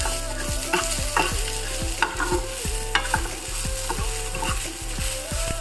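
Spatula stirring chira (flattened rice) with chopped onion and tomato as it sizzles in a frying pan, knocking and scraping on the pan irregularly about twice a second. A steady low hum runs underneath.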